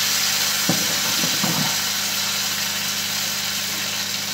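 Chopped tomato, onion and pepper sizzling in a very hot pot of frying oil, a steady loud hiss, with a low hum beneath and a brief knock about a second in.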